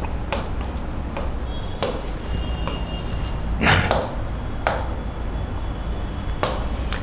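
About six light knocks and taps of a pen and hand on an interactive whiteboard screen, the loudest a little past halfway, over a steady low hum.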